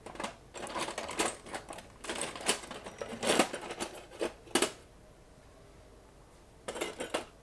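Clicks, scrapes and light rattles of plastic and metal parts of a ThinkPad T500 laptop being handled during disassembly, dense for about the first five seconds. A short cluster of clicks follows near the end as a screwdriver is set to a screw.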